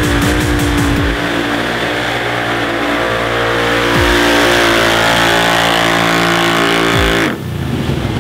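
Can-Am Maverick 1000 side-by-side's V-twin engine running flat out at high, steady revs during a mud drag run. About seven seconds in, the revs fall away suddenly.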